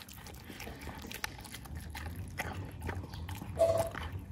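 A dog eating soft, wet food from a plastic bowl: irregular chewing, smacking and lapping clicks. A short high-pitched sound about three and a half seconds in.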